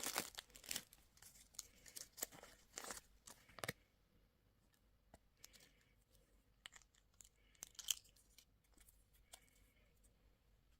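Candy wrapper being torn and crinkled open in quick crackly bursts for the first few seconds, then only a few faint clicks and handling ticks.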